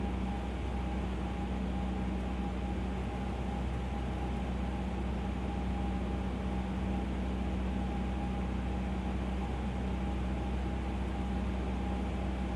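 Cessna 150L's Continental O-200 engine and propeller running steadily on the landing approach, an even drone that holds the same pitch throughout, heard from inside the cabin.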